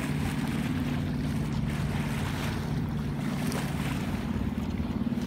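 Sailboat underway at sea: a steady low hum with wind and water rushing past.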